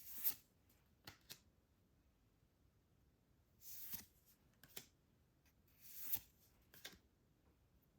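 Hands handling MetaZoo trading cards and their blister packaging: three soft sliding swishes a couple of seconds apart, with small clicks in between.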